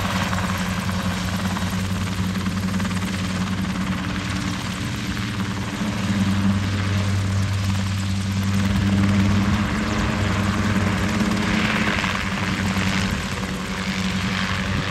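Kompress two-seat tandem ultralight helicopter hovering and flying low, its engine and rotor making a steady drone that swells a little now and then as it manoeuvres.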